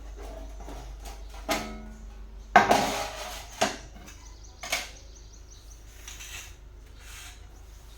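Several knocks and clatters of hard objects being handled and set down, a few seconds apart. The first rings briefly like metal, and the loudest comes about two and a half seconds in.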